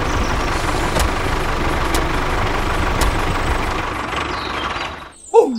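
Steady engine-like running noise with a faint tick about once a second, fading out about five seconds in; a loud short sliding tone, falling then rising, comes right at the end.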